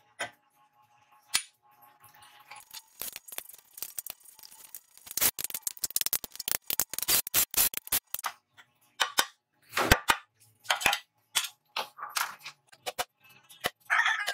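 Steel parts clinking and clicking against a welded square-tube frame as a hinge bracket is fitted, with a few short bursts from a cordless drill. Claw-hammer taps on a steel pin come near the end.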